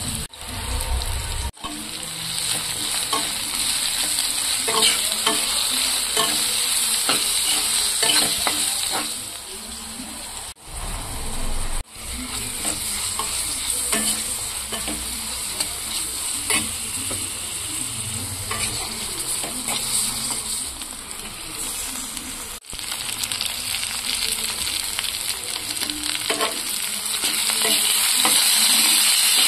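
Sliced onions, coconut pieces, dried red chillies and curry leaves sizzling in hot oil in a pan, with a spatula stirring and scraping through them. Near the end raw chicken pieces are being turned in the pan and the sizzle gets louder.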